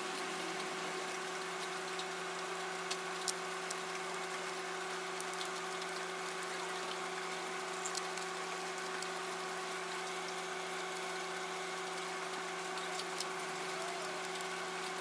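A steady machine hum at one fixed pitch, with a few faint light clicks.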